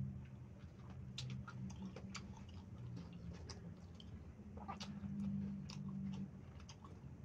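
Close-miked eating sounds: scattered soft clicks and smacks of a mouth chewing, with fingers scooping into rice on a paper wrapper. A steady low hum runs underneath.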